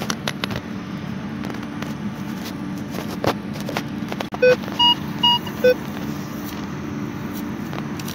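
Four short electronic beeps from metal-detecting gear signalling metal, evenly spaced over about a second and a half: low, high, high, then low. Under them run a steady low hum and scattered clicks and scrapes of digging in soil and grass.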